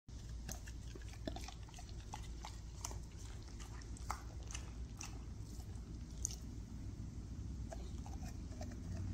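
Bernese mountain dog biting and chewing at an ice cream bar held out on its stick: a string of irregular short clicks and crunches over a steady low hum.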